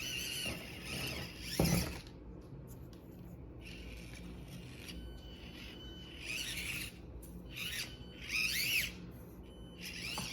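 Axial SCX24 1/24-scale RC crawler's small electric motor and gearbox whining in short bursts, the pitch rising and falling with the throttle, with a sharp knock about two seconds in.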